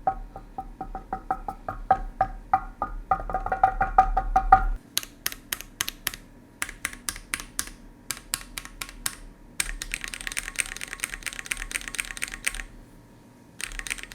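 Typing sound test on a Keychron Q1 75% gasket-mount aluminium mechanical keyboard in stock form: groups of keystrokes, with a fast continuous run of typing in the latter half. The board has the hollow sound that comes from the empty space in its case and top case, which the thin stock dampening foam does not fill. Background music runs under the first five seconds or so.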